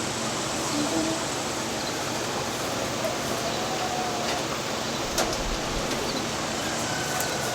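Steady outdoor hiss with a few faint, short bird calls and an occasional light click.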